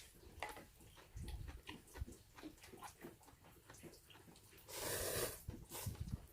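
A person eating noodles: small clicking and chewing noises, with a louder, breathy slurp about five seconds in.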